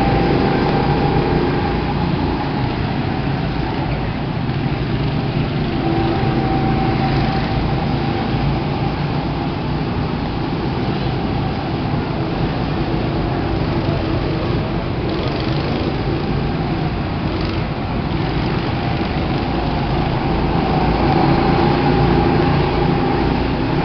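Go-kart engines running as karts drive around a track, a steady engine drone that swells a few times as karts pass close.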